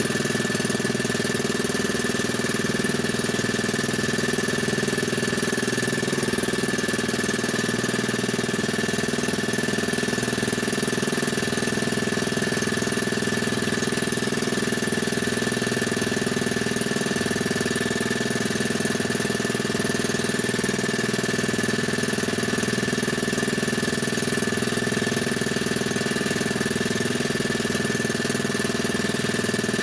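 Small boat engine running at a steady speed, its pitch unchanging throughout.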